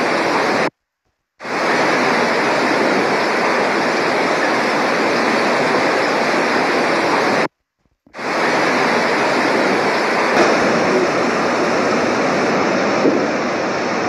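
Torrent of floodwater rushing down a city street: a loud, steady rush of water. It breaks off twice into about half a second of silence where one clip cuts to the next.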